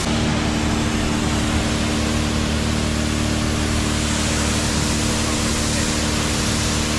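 Pressure washer running steadily, its motor humming under the loud hiss of the water jet spraying against a boat hull.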